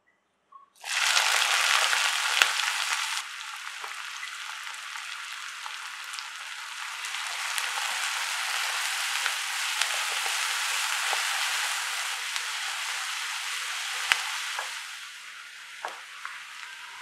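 Chopped onions hit hot oil in a nonstick pan about a second in and sizzle loudly, then fry with a steady sizzle while a wooden spatula stirs them, with occasional sharp taps of the spatula on the pan. The sizzle eases off near the end.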